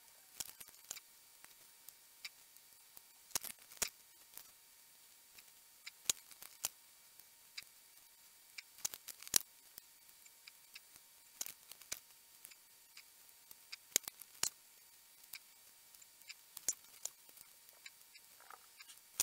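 Small, sharp clicks and taps at irregular intervals from hand-soldering pin headers onto small circuit boards: the soldering iron tip and solder wire touching the pads and the board shifting on the work mat. A faint steady high hum lies under them.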